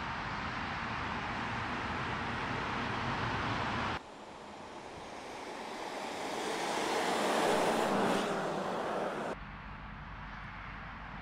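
Road vehicles driving past, heard as a rushing tyre-and-wind noise, in three sections with sudden breaks between them. The middle section swells to its loudest about eight seconds in as a vehicle passes, then stops abruptly, leaving a quieter steady rush with some low rumble.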